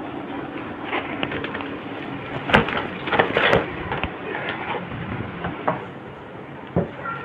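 Irregular clicks, knocks and rustling as a new computer keyboard, just out of its box, is handled, with the sharpest clacks about two and a half to three and a half seconds in.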